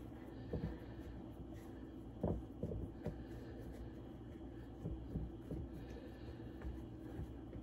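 Soft taps and light knocks from hands pressing pie dough into a pie dish on a wooden cutting board, the loudest knock about two seconds in, over a steady low hum.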